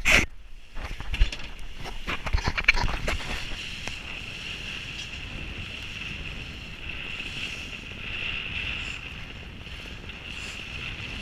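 Sailboat under sail, its hull rushing through chop with the bow wave hissing and wind buffeting the microphone. There are a few loud knocks and buffets in the first three seconds, then a steady rush.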